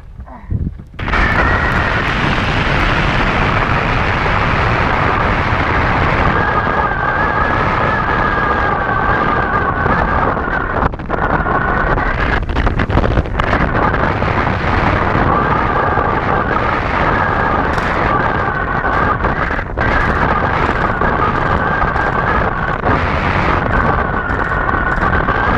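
Wind from the flight buffeting a camera mounted on a Falcon 4 hang glider: a loud, steady rush that sets in about a second in, with a faint wavering whistle above it.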